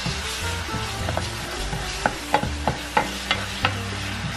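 Soto spice paste sizzling as it fries in a nonstick frying pan, stirred with a spatula that knocks against the pan in repeated sharp clicks, a few per second.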